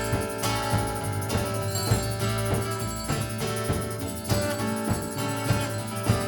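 Live band playing an instrumental passage without vocals: sustained instrumental notes over a steady beat.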